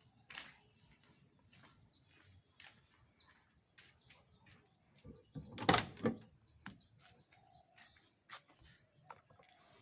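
Faint scattered clicks and knocks, with a louder cluster of knocks about halfway through.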